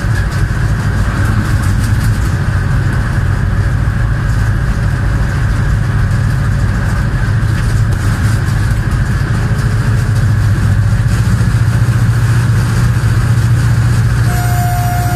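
Diesel locomotive of a Pakistan Railways train running steadily at speed: a deep, even engine hum under wind and rolling noise from the track.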